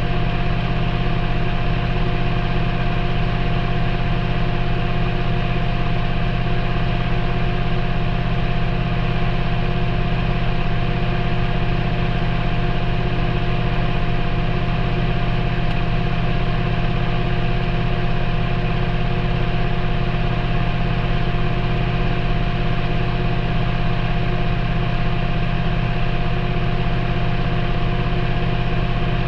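Maytag front-loading washing machine's drum turning at a steady speed near the end of a delicate cycle, most likely the final spin: a constant motor hum with a steady whine over it, heard from inside the drum.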